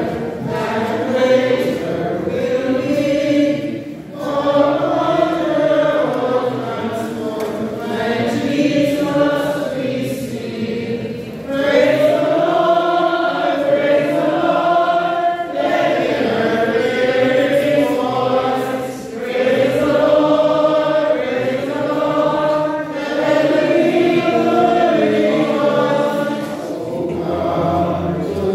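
Church congregation singing a hymn together, in phrases of a few seconds with brief pauses for breath between them.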